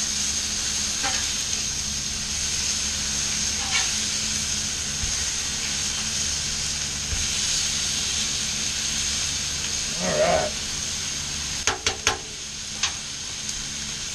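Chicken breasts, salmon fillets and vegetables sizzling steadily on a hot flat-top griddle. A brief low sound comes just after ten seconds in, followed by a few sharp clicks as the metal spatulas tap the griddle.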